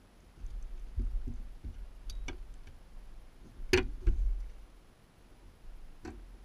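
Scattered clicks, knocks and low thuds of an angler moving on a boat deck and handling a landing net. The loudest is a sharp knock, then a heavy thud a little under four seconds in, as he drops to his knees with the net.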